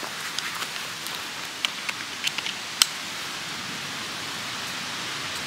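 Wind through oak and hickory trees, a steady hiss, with a handful of sharp ticks about one and a half to three seconds in: acorns falling through the branches and landing.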